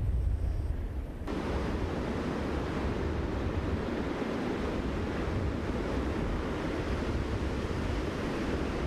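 Steady rushing of floodwater, with low wind rumble on the microphone. The sound changes abruptly about a second in, from mostly rumble to an even rush of water.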